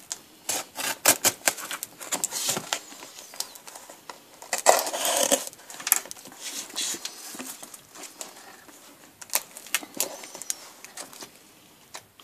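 Hands handling a taped cardboard shipping box on a wooden table: scattered light clicks and knocks, with a longer scraping, rustling stretch about five seconds in.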